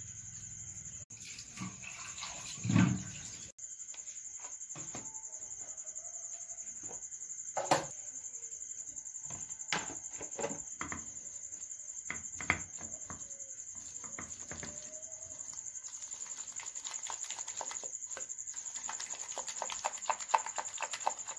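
Batter of gram flour and rice flour being mixed by hand in an aluminium bowl: scattered knocks and clatter against the bowl, then about two thirds of the way through a steady run of quick wet slapping and squelching as the hand beats the thick batter. A steady high-pitched insect drone runs underneath.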